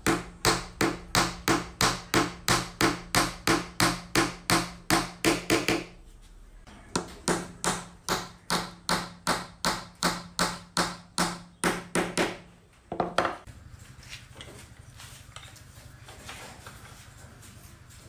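Hammer driving small nails through a thin wooden slat into the curved wooden end pieces: quick, even blows about three a second in two long runs with a short pause between, then a couple of last blows about thirteen seconds in.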